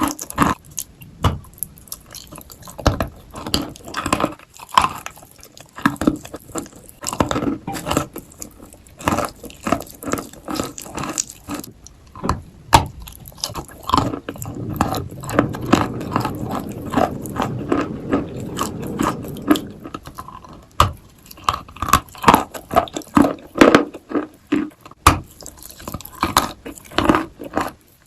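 A person biting and chewing dry, powdery Turkestan white clay: irregular sharp crunches, with a stretch of steadier grinding chewing about halfway through.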